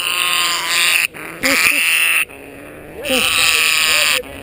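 African grey parrot screeching in distress as it is gripped in a hand: three long, harsh screams of about a second each, with short breaks between them.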